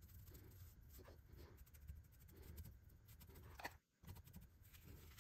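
Near silence, with faint scratching of a small brush working dark brown wax into the crevices of a carved resin moulding. The sound drops out completely for a moment just before four seconds in.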